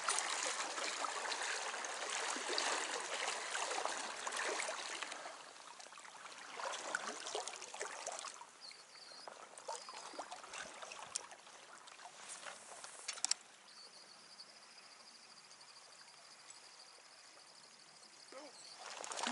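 River water swishing and trickling around waders as an angler wades through the current. It is louder for the first few seconds, then quieter, with a few sharp clicks in the middle and a faint high steady tone near the end.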